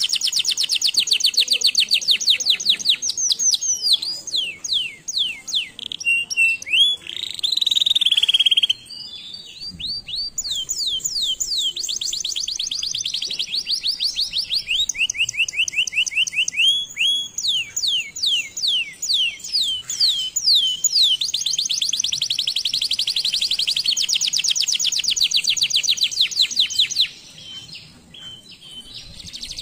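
Canary singing a long song of fast trills and rolls, each phrase a rapid run of repeated high notes, the speed and pitch changing from phrase to phrase. The song thins briefly about nine seconds in and again near the end.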